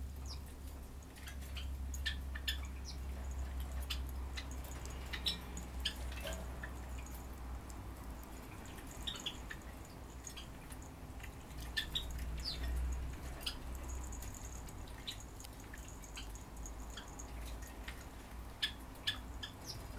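Small metal bells on a bird's swing giving short, scattered tinkles as a Java sparrow shakes and preens its feathers on the swing, over a steady low hum.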